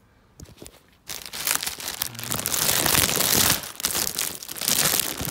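Clear plastic wrapping bag crinkling and crackling loudly as it is handled and pulled off a moulded plastic toy, starting about a second in after a few faint clicks.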